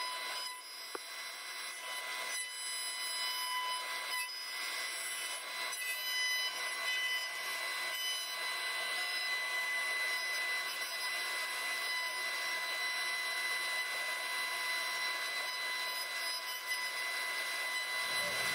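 CNC router spindle running with a steady high whine while a 1/2-inch ball-nose bit rough-cuts a Douglas fir blank turning on a rotary axis, the cutting noise of the wood under the whine.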